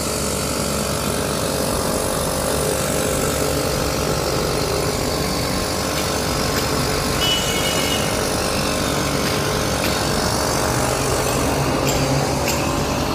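A steady mechanical hum with a hiss over it, unchanging throughout.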